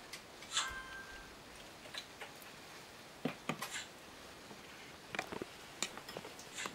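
Scattered light clicks and taps over quiet room tone, with a brief high chirp about half a second in.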